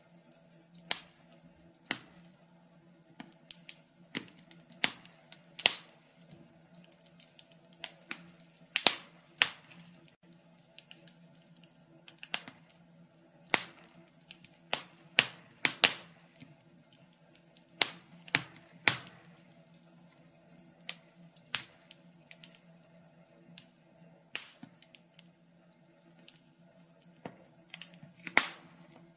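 Wood logs burning in a fireplace, crackling with irregular sharp pops and snaps of varying loudness over a faint steady hum.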